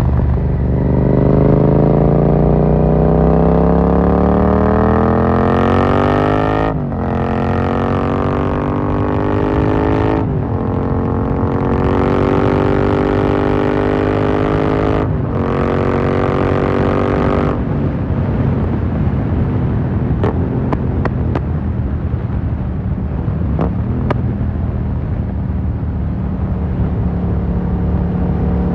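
2018 Yamaha MT-07's parallel-twin engine through an Akrapovic carbon full exhaust, accelerating hard. The pitch climbs through each gear and drops sharply at three quick upshifts. Then the throttle closes and the revs fall, with a few short crackles from the exhaust on the overrun, and near the end the engine pulls up in pitch again.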